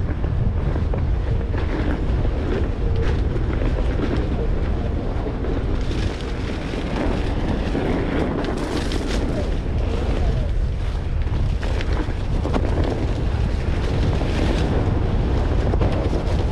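Wind rumbling on the microphone as a Onewheel GT rides a dirt trail covered in pine needles, with scattered crackles from the tire over the litter from about six seconds in.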